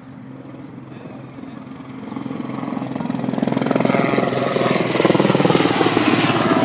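Helicopter with a rapid, even rotor beat, growing steadily louder over the first four seconds and then holding loud until it cuts off suddenly at the end.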